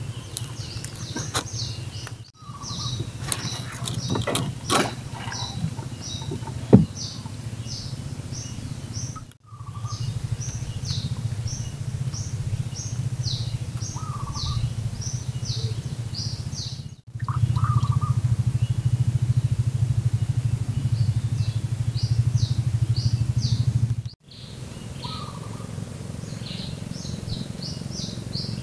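Small boat engine running with a steady low drone, louder for several seconds in the second half, while a bird repeats short, quick descending chirps over it. A few handling clicks come near the start, and the sound breaks off briefly at each of four edits.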